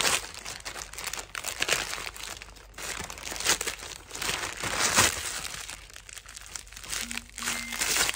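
Plastic courier mailer crinkling and rustling as hands pull it open, then bubble wrap rustling as the wrapped item is drawn out. It comes in irregular bursts, loudest about five seconds in.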